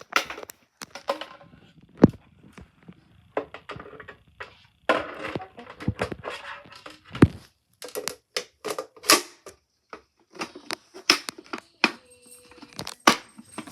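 Packaging being handled and opened: irregular crinkling, tearing and clicking with scattered knocks.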